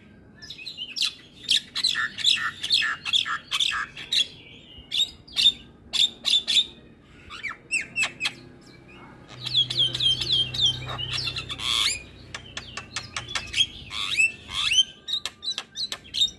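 Javan myna (jalak kebo) in full song: a fast, varied run of chirps, clicks, short whistles and harsh squawks, with a brief pause about seven seconds in.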